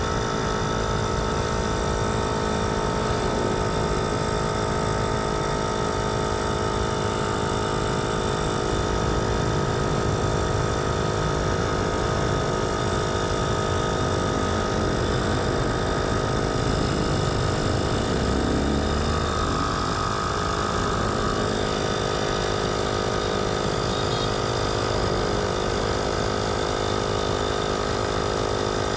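A motor running steadily: a constant mechanical hum that holds the same level throughout.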